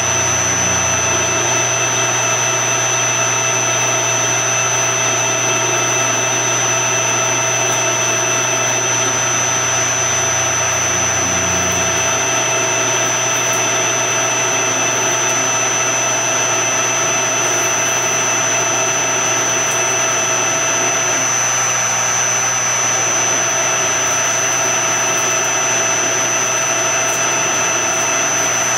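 Metal lathe running steadily with its chuck spinning: a constant high-pitched whine over a lower hum, with no cutting chatter or bursts.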